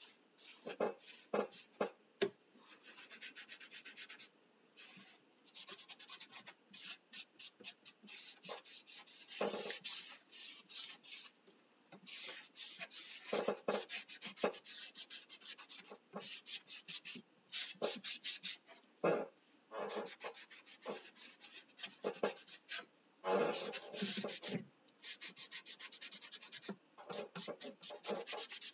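A baby wipe scrubbing paint onto a laser-cut wooden arch, in quick back-and-forth rubbing strokes. The strokes come in runs of several a second with short pauses between them.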